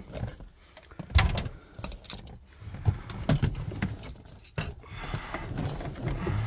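Handling noise: an irregular string of clicks, knocks and light rattles, with the loudest knock about a second in.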